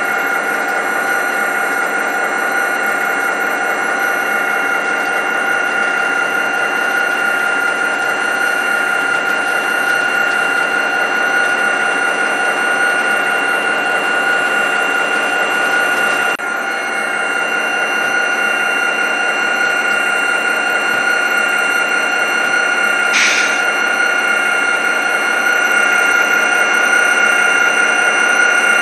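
Model diesel-hauled coal train running on the layout: a steady whine from the locomotive drives over the rattling clatter of the cars rolling along the track, with a brief higher squeal about two-thirds through.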